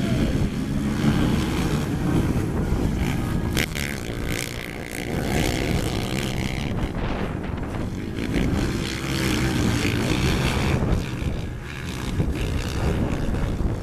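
Several race quads (sport ATVs) running hard on a dirt track, their engines revving up and down as the riders work the throttle through the pack.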